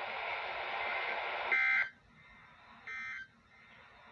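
Steady radio hiss, then two short bursts of Emergency Alert System (SAME) digital data tones about a second and a half apart: the end-of-message code that closes the alert.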